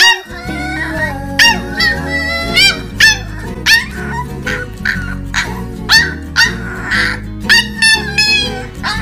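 Corgi puppy howling and yipping in about a dozen short, high-pitched cries, each rising then falling in pitch, with background music underneath.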